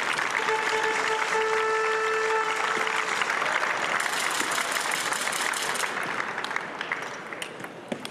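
Arena crowd applauding and cheering the point just won, dense clapping that tapers off after about six seconds. A held, horn-like pitched tone sounds over the applause for the first two or three seconds.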